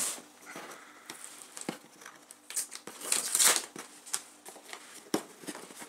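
Packing tape being peeled off a cardboard box: rustling and several short tearing rips, the loudest about three and a half seconds in.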